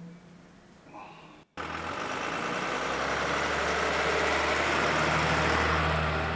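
Quiet room tone for about a second and a half, then a fire truck's engine running loud as the truck pulls away, swelling and easing off a little near the end.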